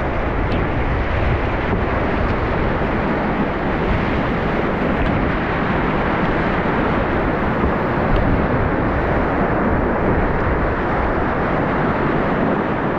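Whitewater rapids rushing close around an open canoe: a loud, steady rush of churning water.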